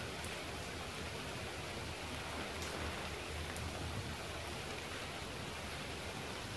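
Steady rain falling, an even hiss with a few faint drip-like ticks.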